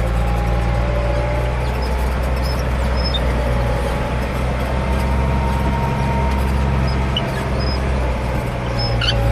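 Ford 8830 tractor's six-cylinder diesel engine running steadily under a constant load, with a faint steady whine above the low engine note.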